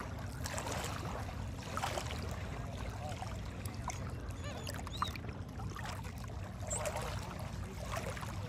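Supercharged drag boat engines idling on the water, a steady low rumble, with one sharp click about five seconds in.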